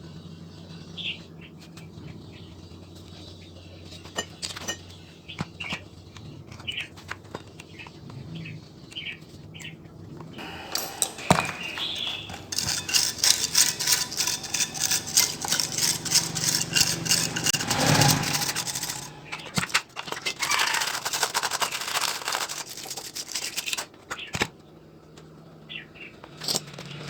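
A long stretch of rapid, even scraping strokes of hand work on parts, starting about a third of the way in and stopping a few seconds before the end. Before it there are faint bird chirps over a low hum.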